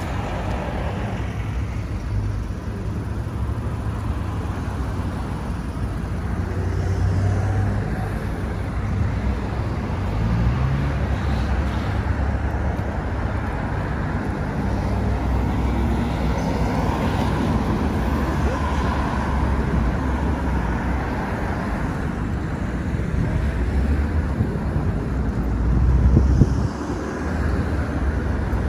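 Road traffic at a wide multi-lane junction: steady rumble of cars and minibuses driving past, swelling louder near the end.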